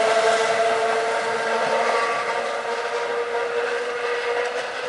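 Train Jaune electric motor car (SNCF Z 100 series, car 117) running along the narrow-gauge track. A steady whine sits over the running noise, and both fade as the car pulls away.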